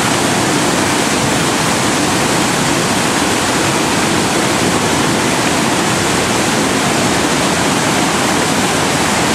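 Whitewater river rapids rushing: a loud, steady wash of water noise that does not change.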